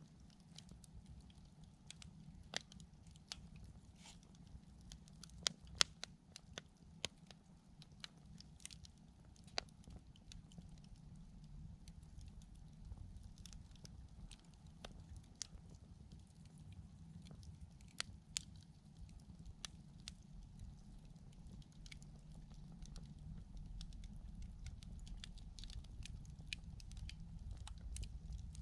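Wood campfire crackling, with irregular sharp pops of burning wood over a steady low rumble.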